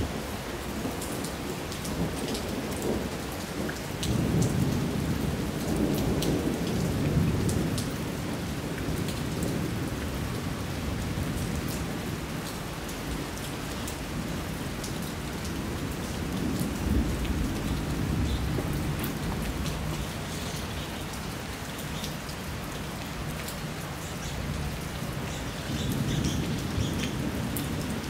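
Steady heavy rain falling on the street and rooftops, with close drops ticking. Thunder rolls in low rumbles, loudest about four to eight seconds in, again around seventeen seconds and near the end.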